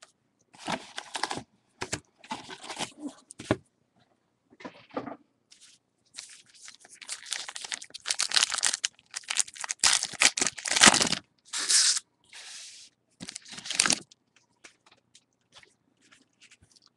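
The wrapper of a trading-card pack being torn open and crinkled by hand: a series of short rustling tears, busiest and loudest in the middle. Near the end there are only faint small ticks of the cards being handled.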